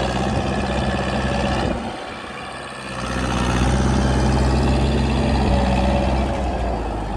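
Massey Ferguson 275 tractor's four-cylinder diesel engine running steadily while the tractor pulls a disc harrow through brush. The engine sound dips for about a second, starting near two seconds in, then comes back.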